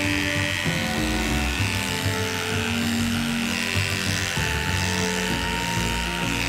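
Electric dog clippers buzzing steadily while shaving through matted fur, under background music with slow held notes.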